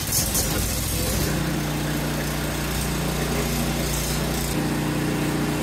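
Ariens snowblower's small single-cylinder four-stroke engine starting up: it catches at once and, after about a second, settles into a steady run as it warms up.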